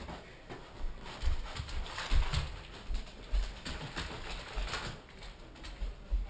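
A dog play-fighting with a person: irregular scuffling and bumps, several short knocks spread through the scuffle.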